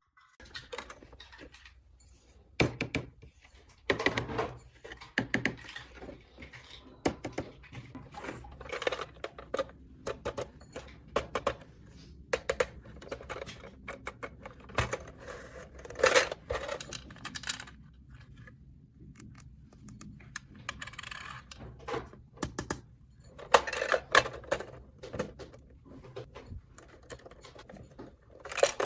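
Small plastic toy pieces handled and set down by hand, giving irregular clicks and clatters with short pauses between bunches.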